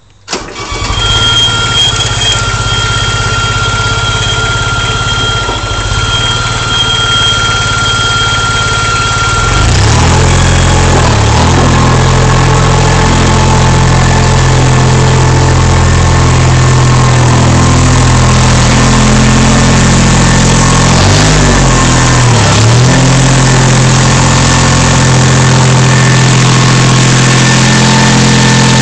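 A ride-on mower's engine starts at the outset and then runs steadily. About ten seconds in it becomes louder and heavier, as though throttled up. A little past twenty seconds it briefly dips twice in pitch.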